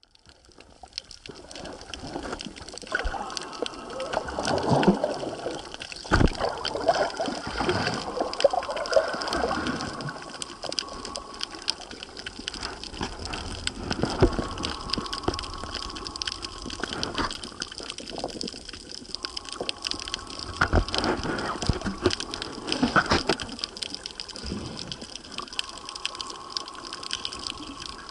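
Underwater sound from a camera in a waterproof housing while snorkelling: muffled rushing and bubbling water that swells and fades, with many irregular clicks and a few dull knocks against the housing.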